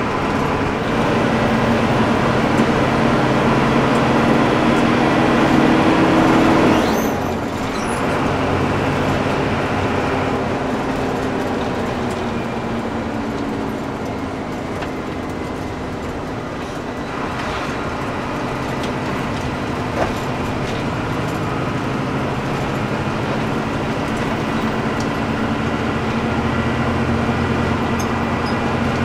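Front-engined Hino AK bus on the move: a steady diesel engine drone over road noise. The engine note climbs over the first several seconds, then drops away about seven seconds in, and runs on steadily.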